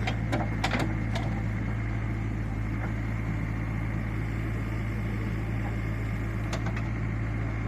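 Diesel engine of a JCB backhoe loader running steadily, with a few short sharp knocks about a second in and a couple more near the end.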